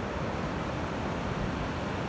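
Ocean surf breaking along a sandy beach, mixed with wind buffeting the microphone: a steady noise with a low rumble.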